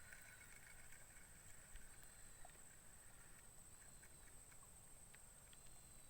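Faint outdoor ambience: a steady high-pitched drone with soft, recurring chirps and a few light clicks.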